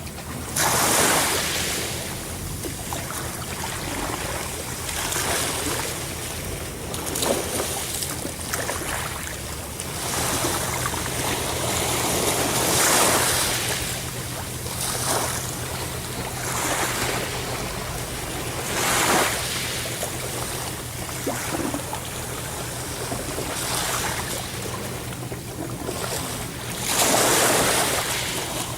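Ocean surf: waves breaking and washing in, one swell of sound about every six seconds over a constant rushing hiss.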